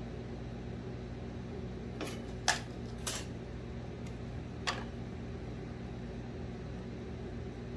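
Steady hum of an air conditioner running. A few light clicks and knocks come over it about two to five seconds in.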